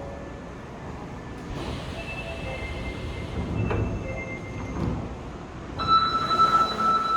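Osaka Metro subway train running at the platform, with wheel squeal and a low rumble. About three-quarters of the way in, a loud steady high electronic tone starts, like a warning buzzer.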